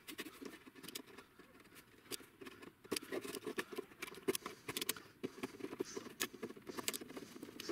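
Razor knife blade scraping and shaving melted plastic off a Commodore disk drive's vent slats: faint, irregular small scratches and ticks, sparse at first and busier from about three seconds in.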